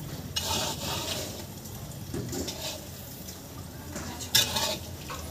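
A metal spatula scraping and stirring a dry mix of coconut powder and powdered sugar in a large metal kadhai, in several uneven strokes, the loudest a little after four seconds in.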